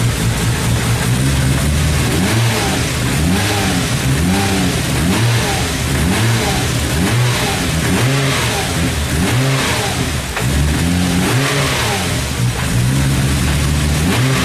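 Nissan Skyline's engine being revved over and over in quick blips, its pitch rising and falling about once a second.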